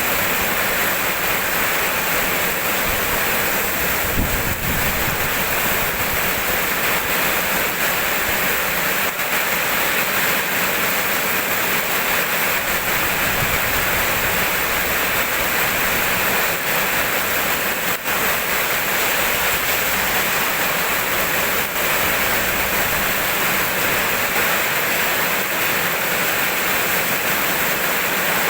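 Steady rain, an even hiss with a few faint ticks scattered through it.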